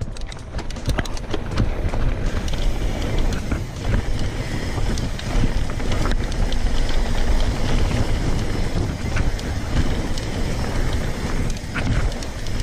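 Wind buffeting the action camera's microphone over the rush of mountain bike tyres rolling fast on a dry dirt trail, with frequent clicks and rattles from the bike over bumps.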